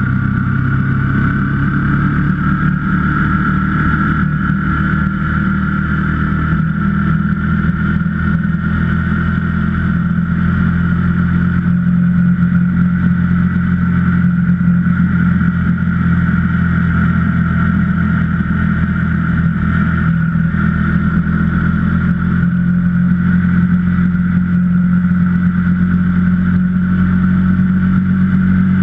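KTM 125 Duke's single-cylinder four-stroke engine running steadily under way at a near-constant pitch, with a steady higher whine above the engine note.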